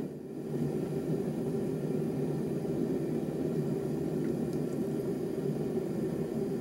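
Red-hot rebar steel blade quenching in vegetable oil: the oil bubbles and sizzles steadily around the hot metal.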